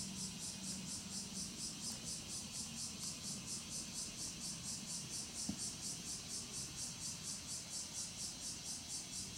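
Insects chirring in a fast, even pulse that does not let up, with a single short click about halfway through.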